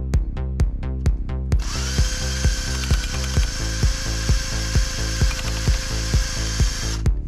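Cordless drill with a paddle mixer stirring paint in a metal can: the motor spins up about a second and a half in, runs at a steady whine and stops just before the end. Electronic background music with a steady beat plays throughout.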